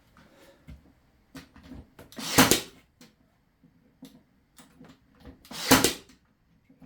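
Brad nailer firing twice, about three and a half seconds apart, driving brads into wooden corner brackets, with small clicks and knocks of the wood being handled in between.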